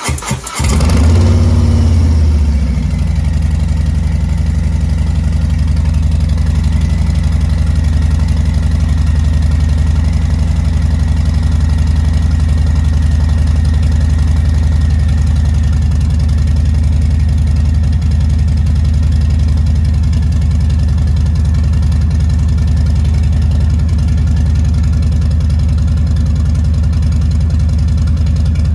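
Harley-Davidson Softail Street Bob's V-twin engine starting and running, briefly faster and louder for the first couple of seconds, then settling to a steady idle. It is being run after an oil change to circulate the fresh oil before the level is checked.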